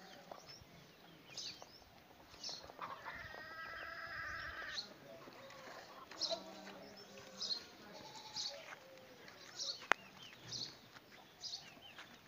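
Goat bleating: one long wavering call of about two seconds, a few seconds in, followed by fainter calls. A single sharp click comes near the end.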